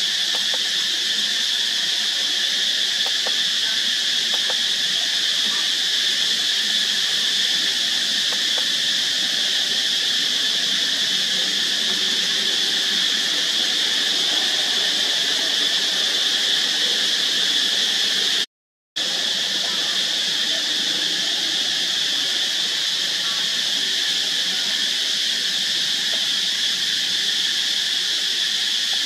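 Steady, high-pitched drone of an insect chorus, unchanging throughout, with a brief full dropout about two-thirds of the way through.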